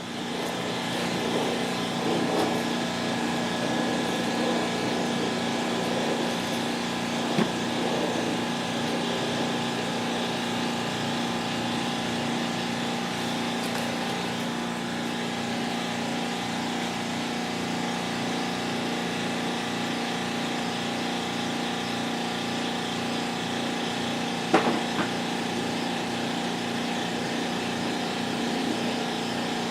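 A small engine running steadily, with two short knocks, one about seven seconds in and one near twenty-five seconds.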